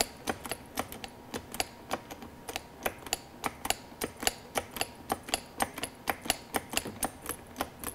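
Hand-lever pump of an injector pressure tester being worked quickly to bleed the line to a brake caliper, giving a rapid, regular clicking of about five clicks a second as it pushes fluid out of the open bleeder.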